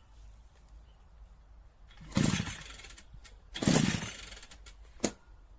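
Two pull-start attempts on a 52 cc two-stroke brush cutter engine: each time the recoil cord is yanked and the engine turns over briefly without catching, so it fails to start. A single sharp click follows near the end.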